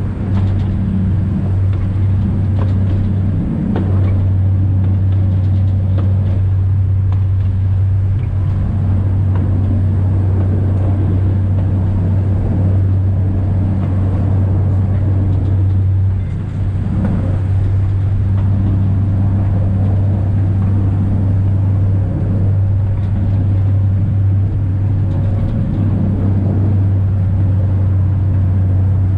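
Steady low hum of a narrow-gauge mountain train's diesel engine heard from the driver's cab, with faint clicks from the running gear. The hum dips briefly twice, about four seconds in and again about halfway through.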